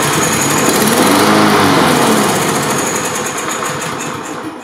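Briggs & Stratton single-cylinder lawn mower engine running on fuel dripped into the spark plug hole. Its pitch rises and falls in the first couple of seconds, then it slowly loses power and dies near the end. This is the mower's fault of starting but not staying running: the carburetor is not keeping it fed.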